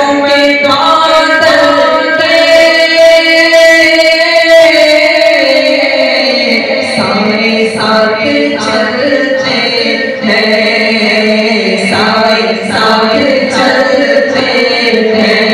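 Voices singing an Islamic devotional song (naat) through a loudspeaker system, with long held, wavering notes; a regular beat joins about halfway through.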